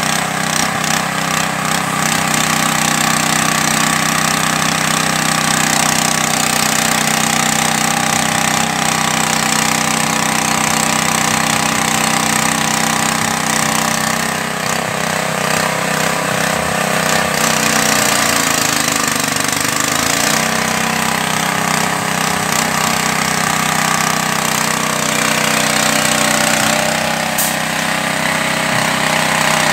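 Fish-feed pellet extruder driven by a small engine, running steadily under load. About two-thirds of the way through, the engine's pitch dips briefly and then recovers.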